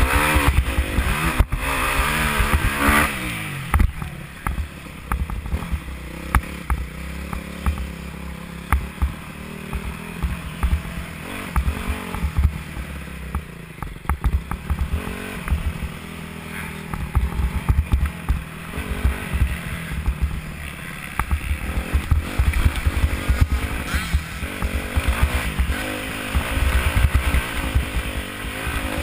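Dirt bike engine revving up and down with the throttle, picked up by a helmet-mounted microphone. Heavy wind buffeting and jolts thud against the microphone throughout.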